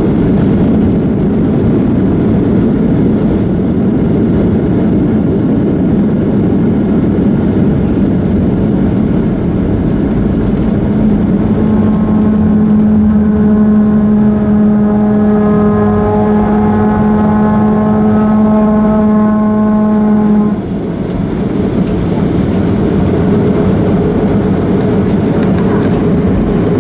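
Boeing 737-300 cabin noise: a steady low rumble from the airliner. About eleven seconds in, a steady whine joins it, then cuts off suddenly about twenty seconds in.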